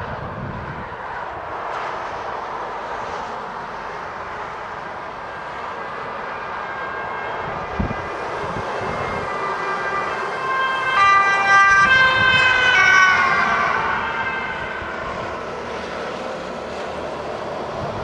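Light rail train running along the track, a steady rushing noise. Around the middle a high whine in several pitches at once rises, holds for a few seconds and fades, some of it falling slightly in pitch near the end.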